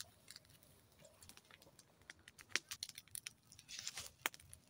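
Campfire of dry twigs and leaves crackling: faint, irregular sharp pops and snaps, with a louder pop about two and a half seconds in and another just past four seconds. A brief rustle just before the second loud pop.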